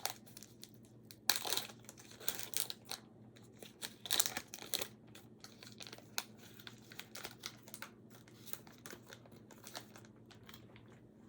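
Plastic wrapper of a 2021-22 Panini Hoops basketball card pack crinkling and tearing as it is opened, in bursts for the first five seconds or so, then softer scattered rustling.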